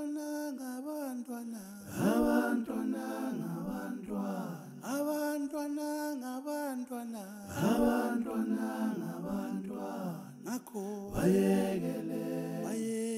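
Background music: unaccompanied voices singing a chant-like melody over a steady held low note, in phrases that begin again every few seconds.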